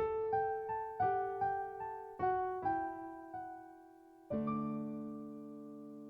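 Gentle solo piano music: a run of single notes, then a sustained chord struck about four seconds in that fades away.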